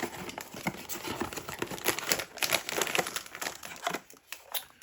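Blind-box packaging crinkling and rustling in the hands as the box is opened, a run of irregular small crackles that thins out about four seconds in.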